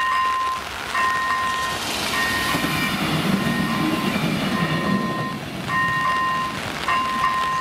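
Level-crossing warning bell ringing a two-tone electronic ding about once a second, while a passenger train rumbles past through the middle. The bell falls silent near the end as the crossing clears behind the train.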